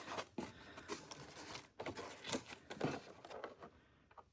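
Cardboard box and packing being handled and opened: scattered faint rustling and light taps and clicks, dying away near the end.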